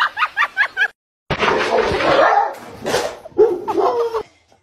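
A quick run of short high-pitched calls, about four a second, breaks off about a second in. After that a dog barks and whines loudly, ending in a lower, wavering cry.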